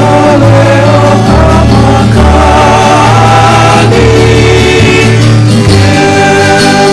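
Music with singing voices over a steady bass line.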